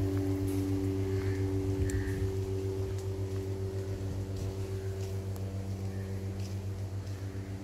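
Steady low hum of a running machine or motor, with a fast regular throb in its level.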